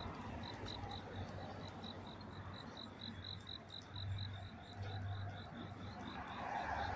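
An insect chirping steadily, with short high chirps at an even pace of about four or five a second, over a low rumble.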